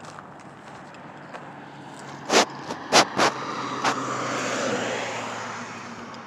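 A car drives past, its engine and tyre noise swelling and then fading away. A few sharp knocks come about two to four seconds in.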